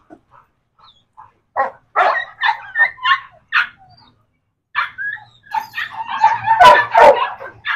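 Dogs barking: a few short barks about two seconds in, then a denser run of barking over the last three seconds, loudest near the end.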